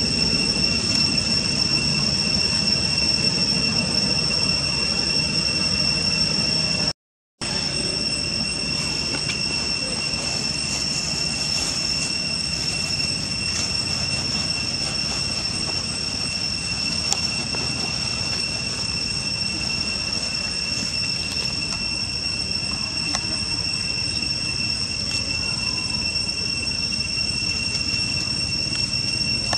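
A steady, high-pitched insect drone, two held pitches that do not waver, with a low rumble beneath; it cuts out for a split second about seven seconds in.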